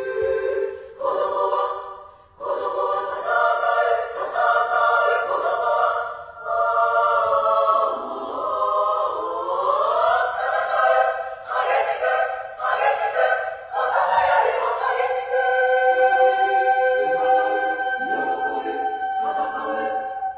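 Women's choir singing in several parts, with a rising slide in pitch partway through, ending on a long held chord that cuts off near the end.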